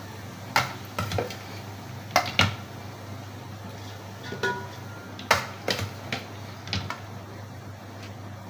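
Steel kitchenware clinking and knocking irregularly as a steel plate and colander of freshly boiled rice are handled, over a steady low hum.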